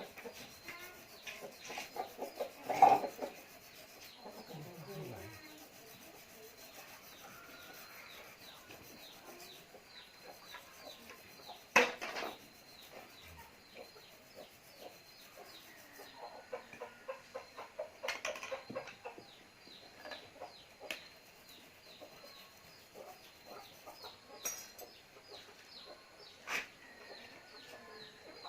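Scattered knocks, clicks and rubbing as small parts are handled and worked by hand, with two sharper knocks about 3 and 12 seconds in.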